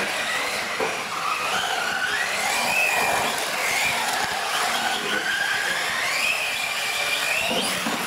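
Radio-controlled UTV trucks racing on a concrete floor: their motors whine, the pitch rising and falling as the throttle changes, over a steady hiss and scrub of small tyres.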